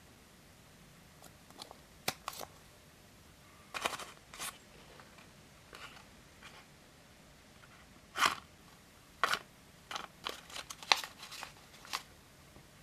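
Tiny paper bag being unfolded and opened by hand: a scattered series of short paper crinkles and crackles, coming thicker and louder in the second half.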